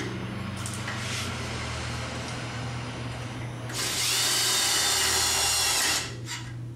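A cordless drill drives a self-drilling Tek screw into the sheet-metal end of a fluorescent light fixture, running with a steady whine for about two seconds and stopping suddenly near the end. Before that, the metal fixture is shifted about on the bench.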